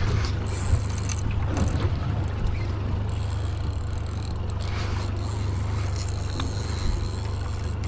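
Boat engine running steadily with a low hum, over a light wash of water and wind, with a few light knocks.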